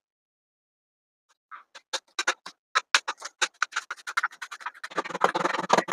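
Kitchen knife chopping fresh coriander on a plastic cutting board: quick sharp taps, about six a second, starting after a second and a half of silence and coming thicker near the end.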